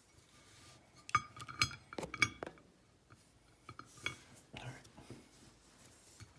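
Several sharp metallic clinks, each with a brief ring, from about one to two and a half seconds in, then a few softer knocks around four to five seconds: a metal lock cylinder being handled against a brass tray.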